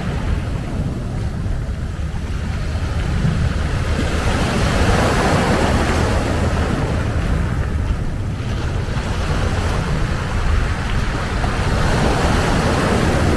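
Surf washing onto a beach, swelling twice as waves come in, with wind buffeting the microphone in a low rumble.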